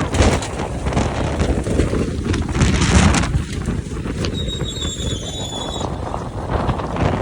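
Storm wind gusting hard over the microphone, a loud rumbling buffet that surges and eases. About four seconds in, a thin high squeal sounds for roughly a second and a half, dropping slightly in pitch.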